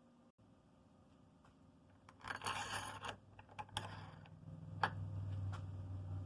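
Small metal parts being handled on a workbench: a short scrape about two seconds in, then a few light clicks and clinks, with a low steady hum coming in near the middle.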